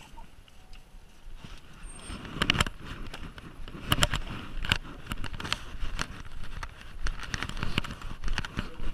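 Footsteps with knocks and rustles from a camera being carried while walking through a door, irregular, about one or two knocks a second, starting about two seconds in.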